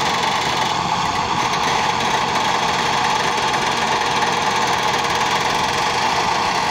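Massey Ferguson 240 tractor's three-cylinder diesel engine running steadily under load, towing a tipping trolley whose raised bed is dumping soil as it moves.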